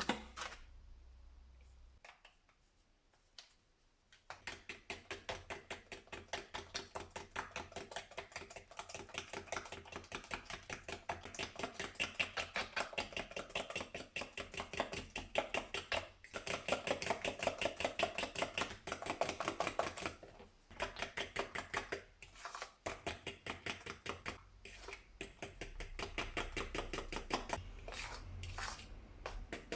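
Kitchen utensil work: fast, steady strokes, several a second, for most of the stretch, the kind made by whisking in a bowl or chopping on a board. It starts a few seconds in, pauses briefly a few times, and breaks up into looser taps near the end.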